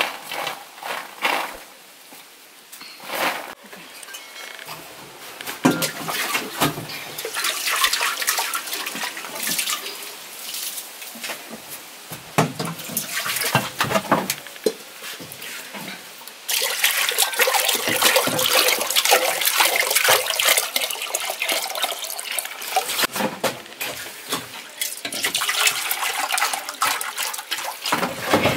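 Peas being sorted on a metal tray, with scattered light clicks and rattles. About halfway through, water starts pouring from a plastic jerrycan into a metal bowl: a steady splashing rush.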